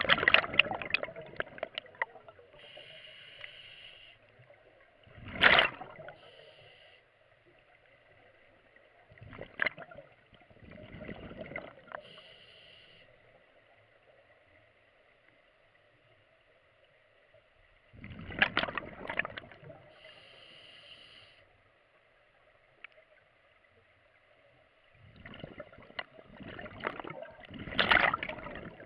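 A scuba diver breathing through the regulator of a full-face mask, heard from inside the mask: about five gurgling rushes of exhaled bubbles, spaced several seconds apart, each with a short hiss of air close after it.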